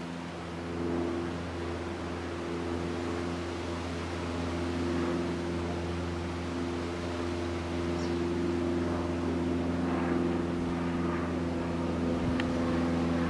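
Steady engine hum of a running vehicle: a low, even drone whose pitch does not change.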